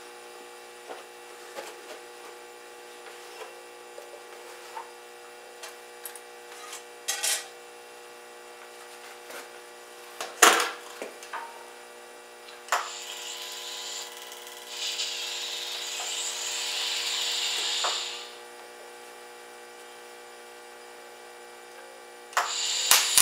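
TIG (heli-arc) welding arc hissing steadily for about five seconds around the middle, then striking again near the end, as tack welds go into a steel patch. Before it, scattered clicks and a sharp knock from metal tools and clamps being handled on the steel wheel.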